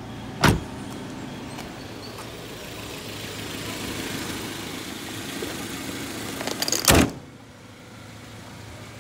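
Suzuki Grand Vitara engine idling with the air-conditioning running. There is a sharp thump about half a second in, and a loud slam about seven seconds in as the hood shuts, after which the engine sound is muffled.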